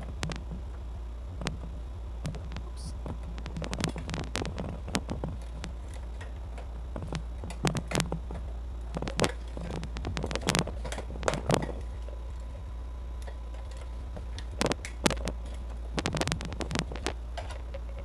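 Plastic clicks, knocks and rattles of an LED ring light's ring being handled and fitted onto its stand mount, in scattered bursts over a steady low hum.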